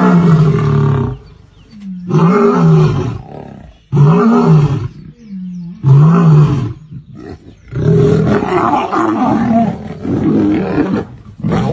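Male lion roaring: four loud calls about two seconds apart, each rising and then falling in pitch, followed near the end by a longer, rougher run of growling calls.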